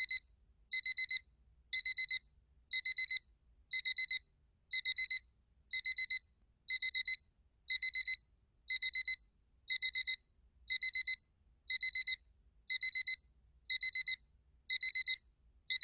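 Digital bedside alarm clock going off, beeping in quick groups of four high beeps that repeat about once a second.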